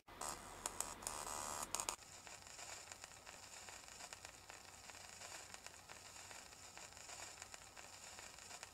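Static-like hiss with crackles, louder and denser with clicks for about the first two seconds, then settling into a fainter, steady hiss.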